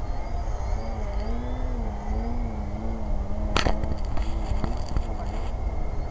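Electric motor and propeller of a radio-controlled model airplane in flight: a droning tone that wavers slowly up and down in pitch as the plane passes. It sits over a low rumble, with one sharp click about three and a half seconds in.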